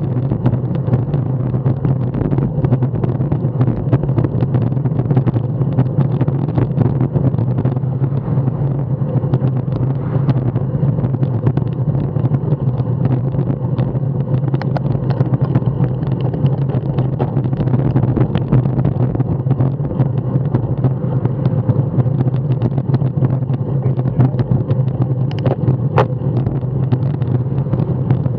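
Steady wind buffeting on the microphone of a camera on a road bicycle moving at about 20 mph, mixed with tyre and road noise. One brief click near the end.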